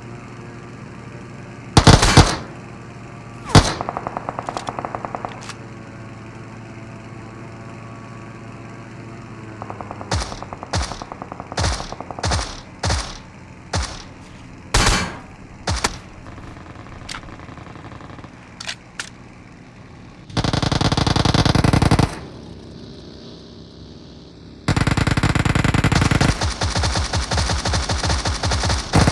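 Video-game gunfire: a few single shots, then a run of separate bangs, then two bursts of rapid automatic fire, the second one longer, about four seconds.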